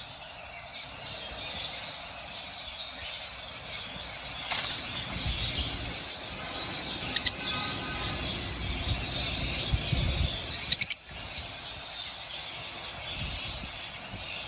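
Lovebirds chirping over steady background noise: a pair of sharp chirps about seven seconds in and a louder burst of three about eleven seconds in.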